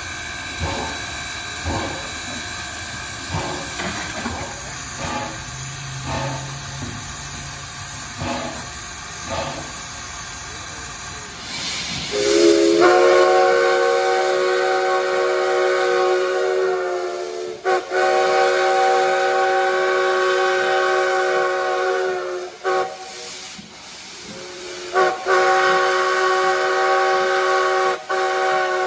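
1907 Baldwin 0-6-0 steam locomotive No. 58: at first steam hissing with a few short puffs. About twelve seconds in, its steam whistle blows three long blasts, the loudest sound, as it approaches a road crossing.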